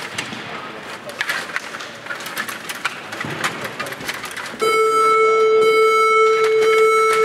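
Table hockey rods and puck clicking and knocking during play, then about four and a half seconds in a loud, steady electronic buzzer tone starts suddenly and holds.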